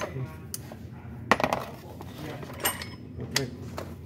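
Metal tools clinking: a socket, short extension bar and ratchet handled and fitted together, giving several sharp clinks with a brief ring, the loudest about a second and a half in.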